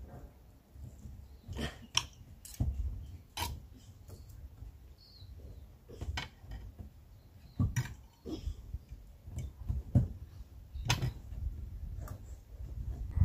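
A metal knife and fork clinking and scraping on a ceramic plate while cutting up food: irregular sharp clicks, about a dozen over the stretch.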